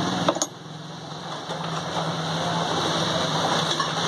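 Small electric motor of a tulsi-bead turning tool running with a steady hum. It cuts out with a few clicks about half a second in and comes back about a second later.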